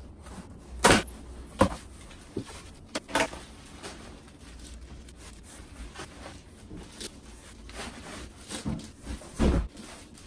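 A cardboard shipping box being opened and unpacked in fast-forward: tape slit, flaps and packing rustling, and plastic-wrapped boxes handled, with several sharp knocks and a heavy thump near the end as a boxed figure is set down on the table.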